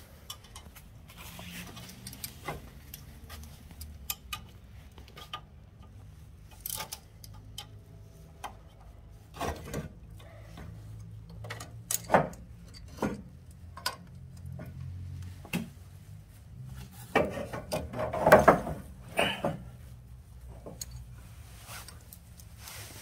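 Hand tools and metal suspension parts being handled: scattered clicks and knocks, with a busier run of louder knocks in the last third, over a faint steady low hum.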